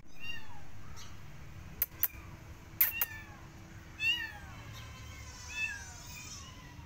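A cat meowing several times, the calls falling in pitch, the loudest right at the start. Four sharp clicks come in two pairs around two and three seconds in.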